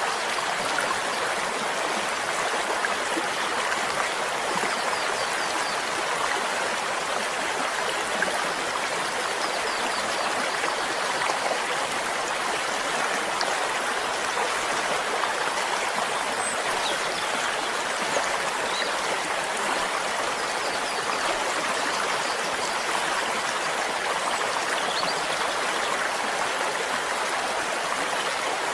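Water of a flowing stream running steadily, an even, unbroken sound of moving water.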